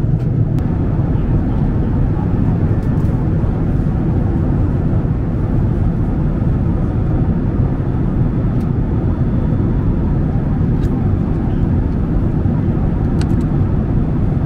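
Steady low cabin noise of a Boeing 767-300ER jetliner in cruise: engine and airflow noise heard from inside the passenger cabin, with a few faint clicks.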